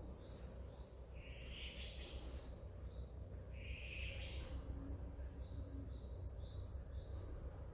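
Small birds chirping: quick runs of short high notes, with two louder, fuller calls about two seconds in and again about four seconds in, over a steady low hum.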